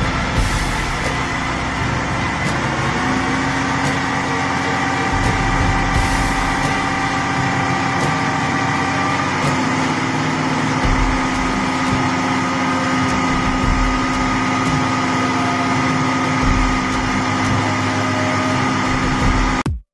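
Terex mobile crane's diesel engine running under load as the crane drives up onto a low-loader trailer, its pitch stepping up twice as it climbs. The sound cuts off suddenly at the end.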